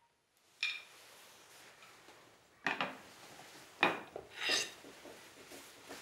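A few scattered light knocks and clinks, as of small objects being handled or set down in a quiet wooden room.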